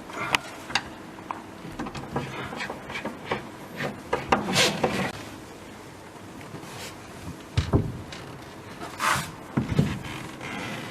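Hand work fitting bolts into a cabinet or hatch hinge: scattered clicks, knocks and short scrapes of metal on wood, with two longer rubbing sounds about four and a half and nine seconds in.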